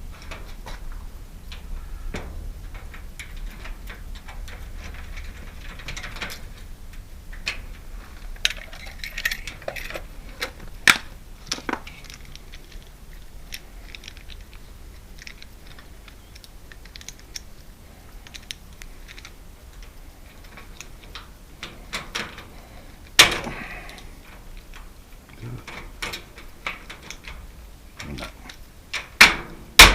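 Scattered clicks, clinks and knocks of metal lock parts and hand tools as a screen door lock is worked on. There is one sharper knock about two-thirds of the way through and a few more close together near the end.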